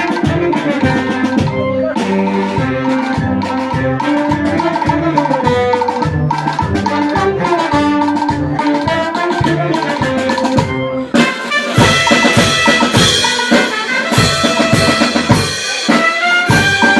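Brass band playing a pasodoble, trumpets and other brass over bass and drums with a steady beat. About eleven seconds in the music breaks off briefly and comes back in a louder, brighter brass passage.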